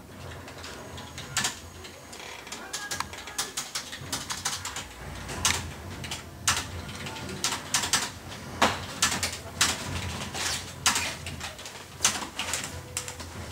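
Typing on a computer keyboard: irregular key clicks, several a second, with a few louder keystrokes.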